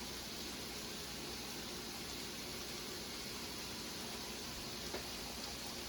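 Steady soft hiss of chili cooking in a pot on low heat, with one faint tick about five seconds in.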